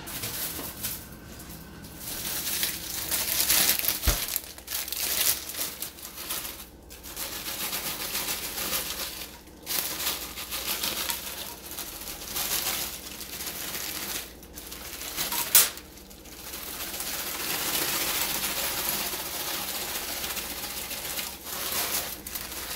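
Plastic bag of frozen mixed vegetables crinkling as it is shaken out over a glass baking dish, with frozen pieces dropping into the dish. The rustling comes in several spells with short pauses, with one sharp click about two-thirds of the way through.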